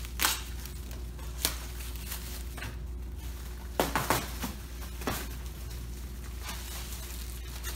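Plastic stretch wrap being cut and pulled off a machine, giving short crackling snaps and rustles about once a second over a steady low room hum.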